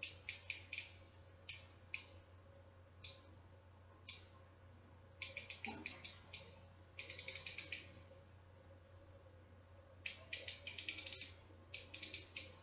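Mastercraft 1/4-inch drive ratchet being worked by hand, its pawl clicking over the gear: single clicks and quick runs of clicks with short pauses. The clicks are fairly coarse, not a really fine tooth count, roughly a 40 to 45-tooth mechanism by the user's estimate.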